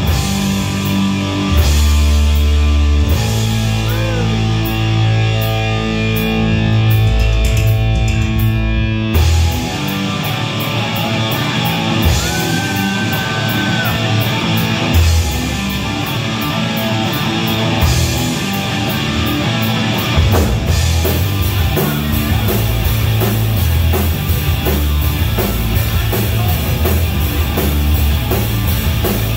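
Live rock band playing an instrumental passage: distorted electric guitar with bent notes over bass guitar and a drum kit. The arrangement changes abruptly about nine seconds in.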